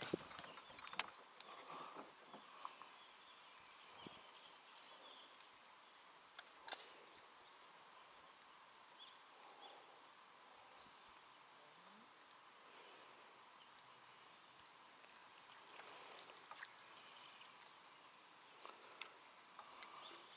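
Near silence: faint outdoor ambience over the water, with a few soft clicks and knocks, the sharpest about a second in.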